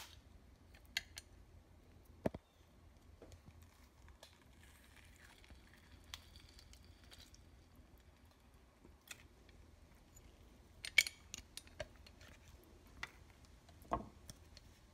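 Hand-held citrus press squeezing lime halves over a glass bowl: scattered quiet clicks and taps of the press, with a cluster of sharp clicks about eleven seconds in and a soft thump near the end.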